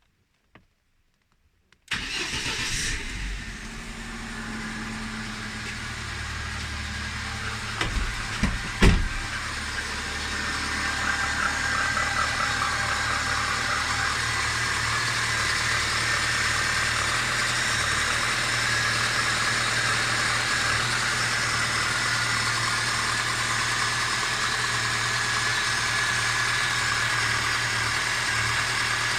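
Car engine starting about two seconds in and then running steadily, with a few sharp, louder blips around eight to nine seconds in. It is an engine with a knock whose cause the owner is unsure of, suspecting a piston.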